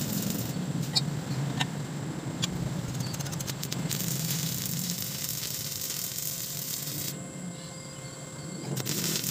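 Stick welding: the electric arc crackles and sizzles steadily as it burns on the pipe joint. It stops for about a second and a half near the end, then strikes again.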